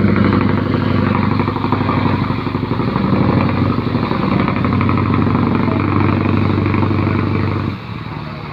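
Fishing boat's Mitsubishi Fuso diesel engine running loud and steady through its exhaust, with a fast even firing beat. Near the end the sound drops suddenly to a quieter level.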